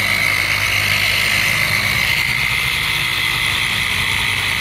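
Electric multi-speed orbital waxer running at medium speed, its pad buffing wax on a wooden cabinet: a steady high motor whine over a low hum.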